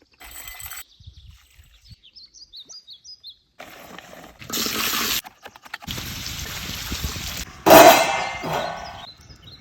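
Cooking sounds: stretches of hissing noise, then a loud metal clang with a brief ring near the end, like cookware being struck or set down.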